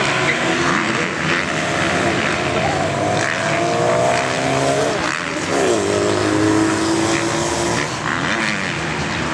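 Several motocross motorcycle engines revving together, their notes rising and falling as the bikes accelerate and shift on the hill, with a sharp drop in pitch about five seconds in.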